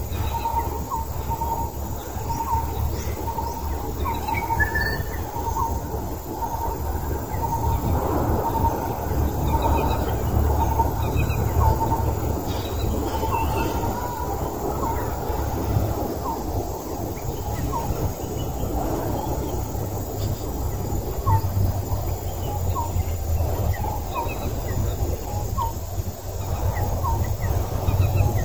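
Outdoor ambience: a steady low rumble, with birds chirping and one bird repeating a short note over and over, roughly once a second.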